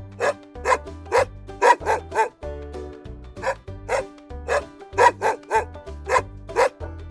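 Dog barking repeatedly, about two barks a second in short runs with brief pauses, over background music with a pulsing bass.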